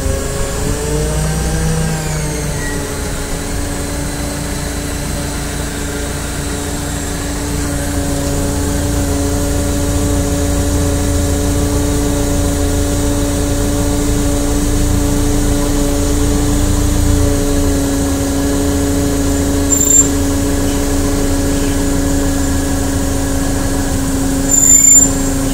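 Forklift running with a steady pitched drone over a low rumble while the forks are raised; the pitch wavers for the first couple of seconds, then holds. A short sharp squeak about 20 seconds in and a louder one near the end.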